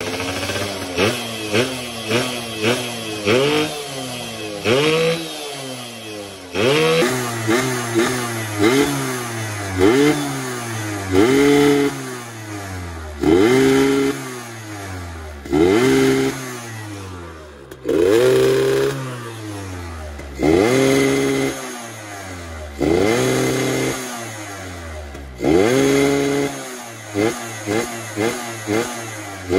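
Yamaha F1ZR's 110 cc single-cylinder two-stroke engine revved in repeated throttle blips, the pitch shooting up and falling back each time: quick short blips at first and again near the end, longer revs every two or three seconds in between. The carburettor is set up for a raspy 'ngorok' exhaust note.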